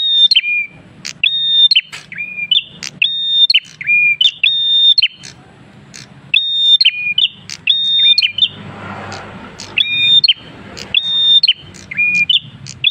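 Caged prenjak kristal singing hard: a fast string of sharp whistled notes, each a high note stepping down to a lower one, about two a second. There is a short break about two-thirds of the way through.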